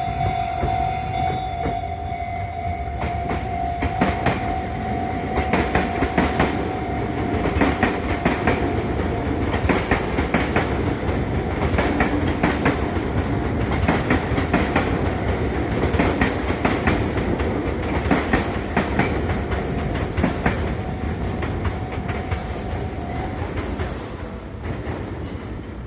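Sotetsu electric train passing over a level crossing, its wheels clacking over the rail joints in quick, irregular clicks above a steady rumble, fading near the end. A steady ringing tone, the crossing's warning signal, sounds underneath and stops a few seconds before the end.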